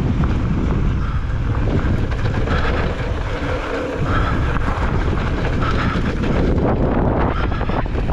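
Strong wind buffeting the microphone during a fast mountain bike descent, a loud, gusting rumble, with short knocks and rattles from the bike running over rough ground.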